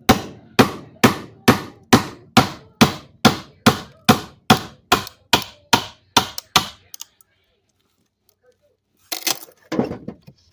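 A chisel being hammered into wood: sharp, even blows at about two a second for some seven seconds, growing lighter toward the end. After a pause, a short clatter of knocks near the end.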